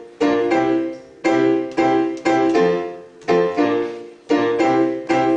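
Digital piano played four-handed: chords struck about twice a second in a repeating pattern, each ringing out and fading before the next.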